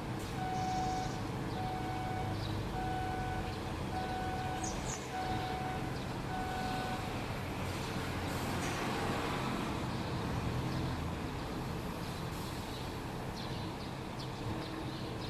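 Steady rumble of road traffic, with a regular electronic beep repeating roughly every half second that stops about seven seconds in.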